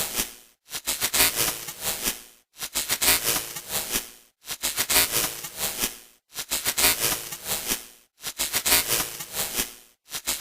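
Malfunctioning television's static noise sound effect, looping in bursts of about two seconds, each broken by a short dropout to silence. The loudness flickers unevenly within each burst.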